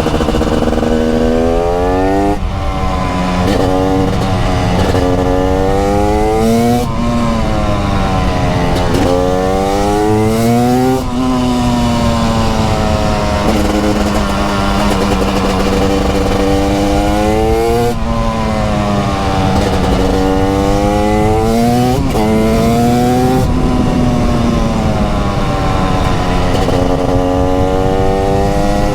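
TM 300 SMR's 300cc single-cylinder two-stroke engine under hard riding: its pitch climbs again and again, drops sharply at gear changes and falls away as the throttle is rolled off for the bends, over steady wind noise.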